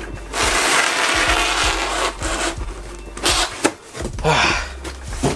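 Cardboard shipping box being torn open by hand: a long ripping tear lasting about a second and a half, then two shorter rips with a sharp knock between them.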